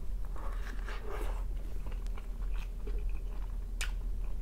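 A person biting into a burger and chewing it, with wet mouth sounds and small clicks. There is one sharper click near the end.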